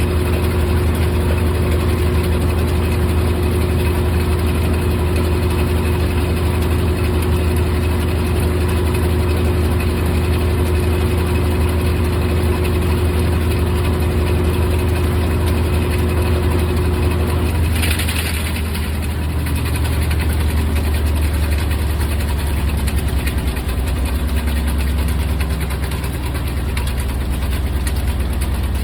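GE top-load washing machine running mid-cycle, its motor and drum giving a loud, steady low hum. A steady higher tone stops about two-thirds of the way through, followed by a brief hiss.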